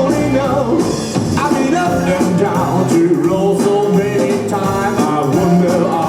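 Rock song with a sung vocal line over the band.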